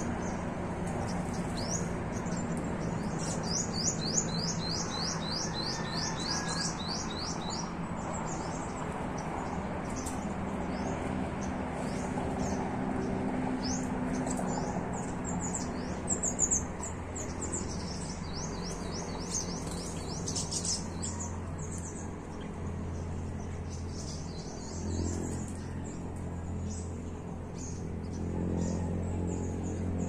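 Small birds chirping in high, quick notes, with a fast run of about four chirps a second a few seconds in and scattered chirps after that, over a steady low hum.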